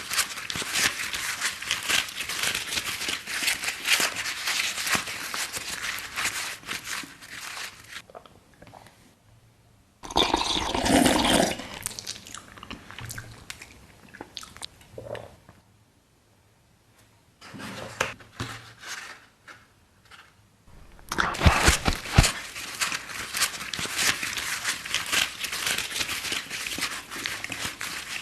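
Close-miked ASMR eating sounds: wet crunching and chewing. They come in several spells with short quiet pauses between, and a loud burst about ten seconds in.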